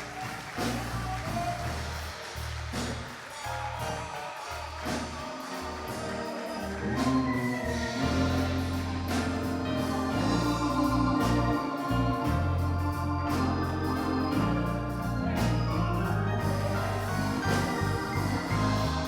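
Gospel organ music: an organ sustains chords over a low bass line, with sharp percussion strokes throughout, growing louder about seven seconds in.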